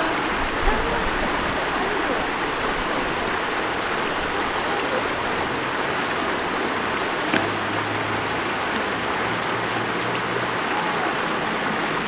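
Shallow stream rushing over a small rocky cascade: a steady, even rush of water.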